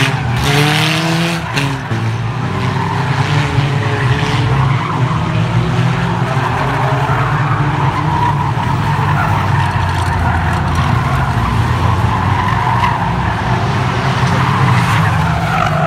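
Engines of several banger-racing cars running hard together as they race round the oval, one revving up about half a second in.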